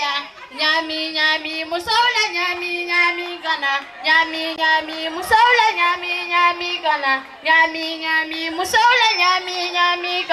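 A woman singing into a microphone, her voice amplified, in several phrases of long, high held notes with short breaks between them.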